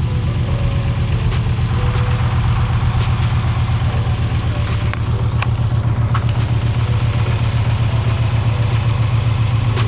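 2013 Ram's 5.7 Hemi V8, fitted with a Texas Speed stage II build, idling steadily with an even pulsing beat.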